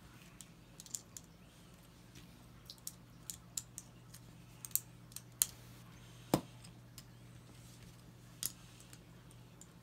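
Plastic LEGO bricks clicking and clattering as they are picked up, pressed together and set down on a table: irregular sharp clicks, with a louder knock about six seconds in.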